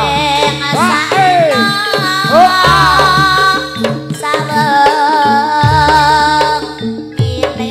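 Live Javanese jaranan dance music: hand drums keep a beat under a melody line that slides up and down in sweeping bends, then settles into long wavering held notes.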